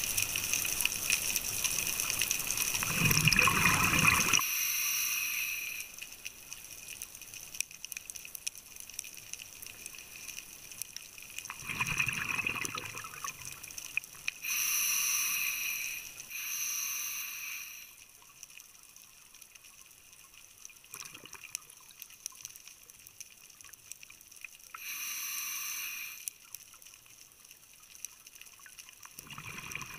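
A scuba diver breathing through a regulator underwater: a long gurgling rush of exhaled bubbles at the start, then shorter breaths a few times later, with faint crackling clicks in the quiet between breaths.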